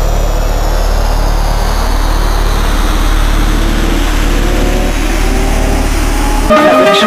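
Logo intro sound effect: a steady engine-like low rumble with slowly sliding tones. About six and a half seconds in, it cuts off abruptly into music with plucked notes.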